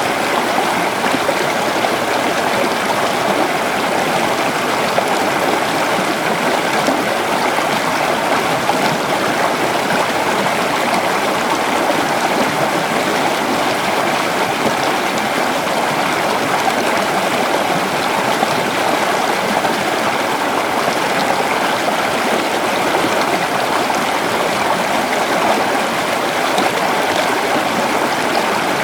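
River water flowing steadily over rocks, a continuous even rushing and babbling.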